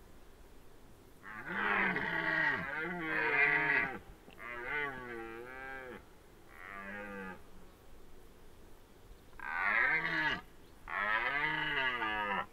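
Red deer stag roaring in the autumn rut: a run of about five long roars, each rising and falling in pitch, the last two coming after a pause of about two seconds.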